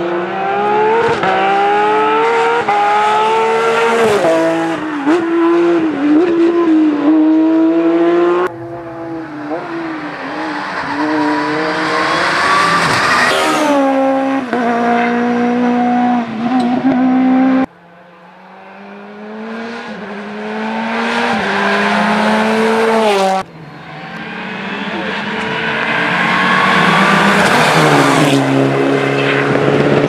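Rally cars on a tarmac stage, among them a Porsche 997 GT3 and a Suzuki Swift S1600, accelerating hard past one after another, their engines revving high with rising pitch broken by gear changes. The sound cuts off suddenly between cars three times, about 8, 17 and 23 seconds in.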